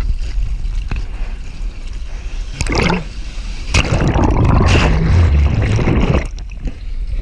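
Surfboard paddling splashes, then the board and camera plunge under a breaking wave: about four seconds in, loud churning water noise for about two seconds as whitewater rolls over, easing off near the end.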